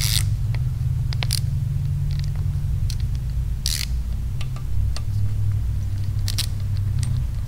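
Small clicks and a short scrape of a hand screwdriver turning a screw and tapping against a Harley-Davidson Shovelhead's aluminium engine case, over a steady low hum.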